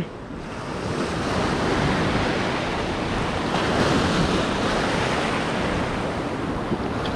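Surf washing onto the beach, a steady rush that swells up over the first second, with wind on the microphone.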